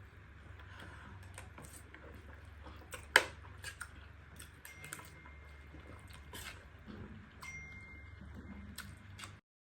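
Handling noises: scattered light clicks and taps with one sharper knock about three seconds in, over a low steady hum.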